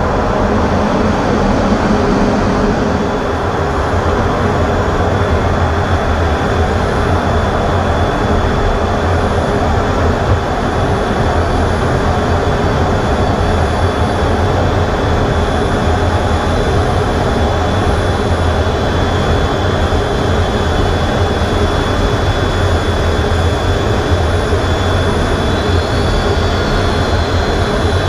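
F/A-18 fighter jet's engines and rushing air heard from inside the cockpit in flight: a loud, steady noise with a low hum and a thin, steady high tone.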